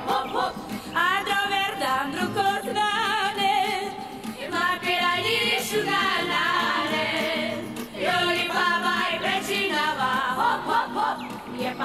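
A chorus of women's voices singing a Romani song together, the voices wavering with strong vibrato.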